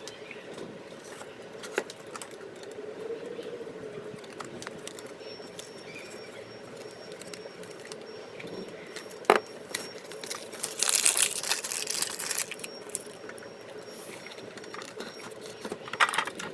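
Trading cards and foil card packets being handled: scattered light taps and clicks, one sharp click about nine seconds in, then crinkling of packet wrapper for about two seconds, and a shorter rustle near the end, over a steady low hum.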